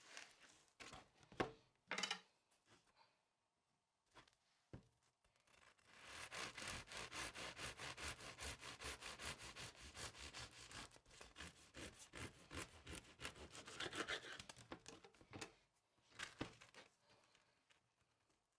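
A knife sawing through a freshly baked whole-grain rye and wheat loaf on a plastic cutting board: about ten seconds of quick, even back-and-forth rasping strokes through the crust and crumb. A couple of sharp knocks come first, as the loaf is handled on the board.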